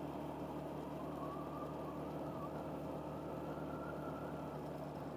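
Steady hum of an engine and tyres on tarmac from the vehicle carrying the camera as it drives along a paved road, with a faint whine that rises slightly partway through.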